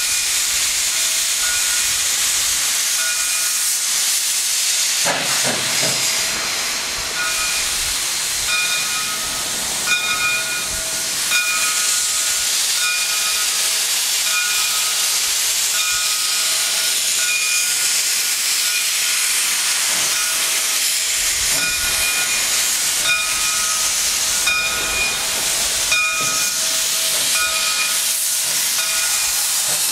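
Loud, steady hiss of steam blowing from the open cylinder cocks of a small 0-6-0 steam locomotive as it starts slowly away. A faint ringing tone comes and goes on and off.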